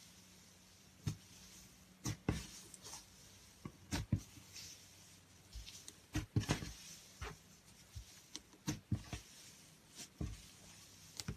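Slime being squeezed and poked by hand, making irregular sticky clicks and pops, some in quick clusters.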